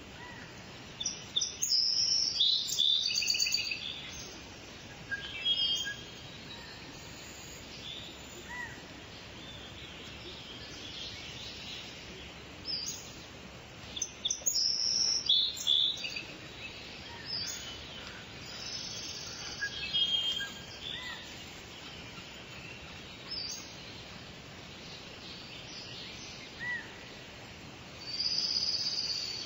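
Several songbirds singing and calling, with short high chirps and trilled phrases coming every few seconds over a steady outdoor hiss.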